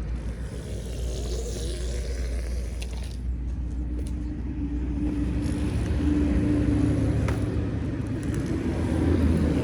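A small motor running steadily with a low rumble, a steady hum setting in about three seconds in.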